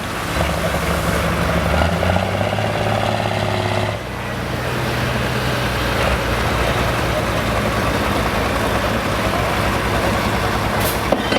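Engine of a modified pulling tractor running loud and steady, easing off about four seconds in and then running on at a lower, even level. A brief sharp click comes near the end.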